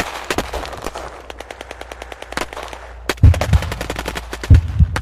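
Machine-gun fire sound effect: rapid shots at about a dozen a second that fade out over the first two to three seconds, then a few heavy, deep booming shots in pairs.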